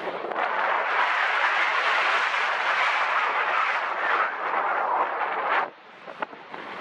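Wind rushing over the microphone in a steady gusty roar, with a brief lull about six seconds in.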